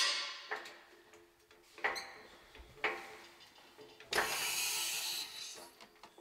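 Workshop tool sounds on a bus chassis: a couple of sharp metal knocks, then a harsher noise lasting about a second and a half.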